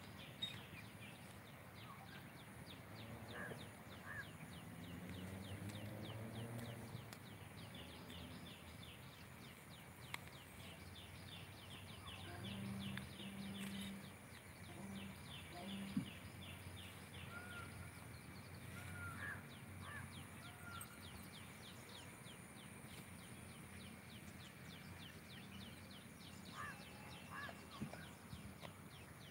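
Faint outdoor rural ambience: a steady fast ticking, about five strokes a second, with a few short bird calls scattered through.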